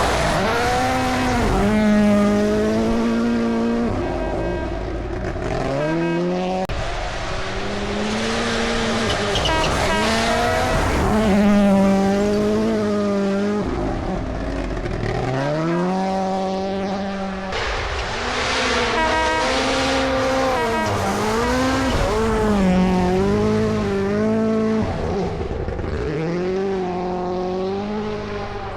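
Rally car engine at high revs, its pitch repeatedly climbing and then dropping sharply as it shifts gears and lifts off and gets back on the throttle.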